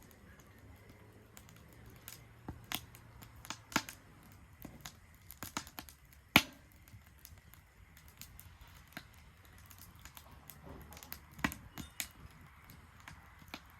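Wood fire crackling in a Solo Stove Ranger fire pit: scattered sharp pops and snaps at irregular intervals over a faint steady hiss, the loudest pop about six seconds in.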